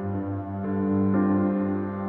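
Background music: a slow ambient piece of held chords over a steady low bass note, the upper notes changing every half second or so.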